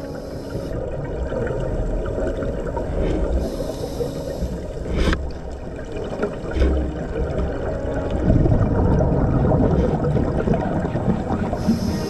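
Underwater sound of scuba regulator breathing: exhaled air bubbling and gurgling out in bursts over a steady underwater wash, with a couple of brief hissing clicks.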